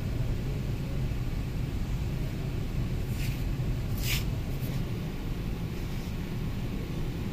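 Steady low background rumble of a large car body-and-paint workshop, with a few short hisses about three and four seconds in.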